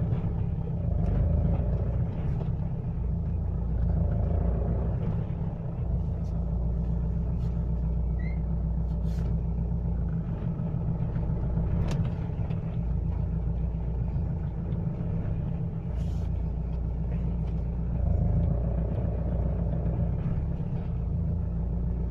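Mitsubishi L200 pickup's engine running under load as the truck pulls away, carrying the knock that the owner hears at every cold start and lately under load when driving. A steady low rumble, with a few isolated sharp clicks.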